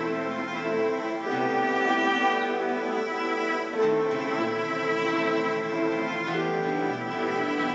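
Ambient looped music: long, sustained bowed-string notes from a cello sample played on an iPad, layered through loopers and effects, with the chord shifting every couple of seconds.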